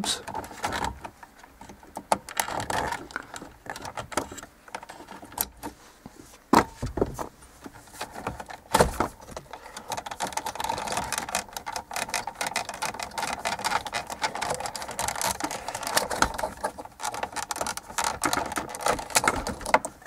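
Plastic wiring connectors on a Ford Focus heater control panel clicking, scraping and rattling as their tabs are prised with a screwdriver and the plugs worked loose by hand. The clicks come irregularly, with a few sharper knocks about six and nine seconds in and denser clicking in the second half.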